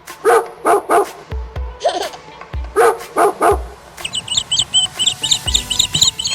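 A dog barking in two quick sets of three short barks over background music with a low beat. A rapid, high-pitched chirping follows in the last couple of seconds.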